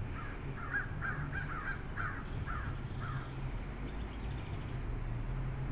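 A bird calling: a quick run of about eight short calls in the first three seconds, then quieter.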